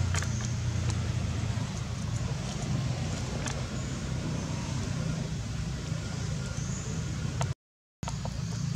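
Steady low outdoor rumble with a few light clicks scattered through it; the sound cuts out completely for about half a second near the end.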